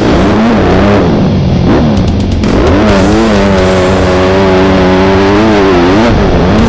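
Dirt bike engine revving up and down, then holding a steady speed for a couple of seconds before rising and falling again near the end.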